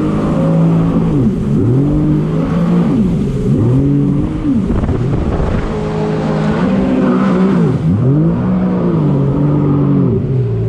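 Jet ski engine running loud and close, its revs repeatedly dropping sharply and climbing back, about every one and a half seconds.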